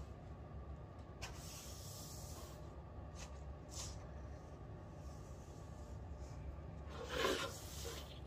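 Quiet room tone with a steady low hum, a few faint ticks, and a brief rubbing, rustling sound about seven seconds in.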